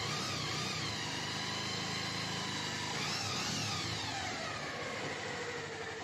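Bajaj Pulsar 150's single-cylinder engine idling steadily, its pitch rising and falling briefly about three seconds in. There is no rattle: the clattering from the worn timing chain is gone now that a new chain is fitted.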